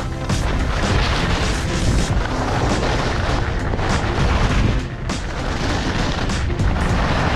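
Wind buffeting a camera microphone during a ski run: a loud, unsteady rumble with a rushing hiss.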